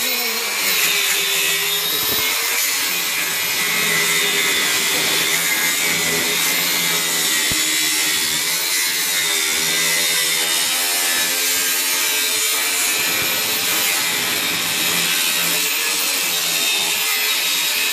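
Angle grinder cutting into the steel body of a car, a continuous hiss of the disc in metal over a motor whine that wavers up and down in pitch as the disc is pressed in.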